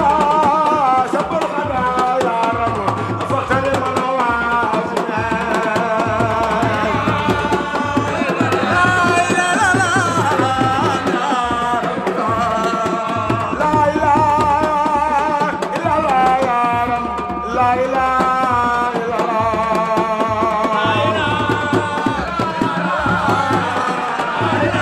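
Music: a wavering, ornamented melody over a steady pattern of hand drums.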